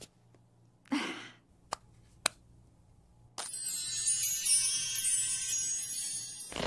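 Cartoon magic-sparkle sound effect: a high, glittering, chime-like shimmer runs for about three seconds as a spell rises from an enchanted compact mirror, and ends in a short rushing burst. Before it come a breathy sigh and two small clicks.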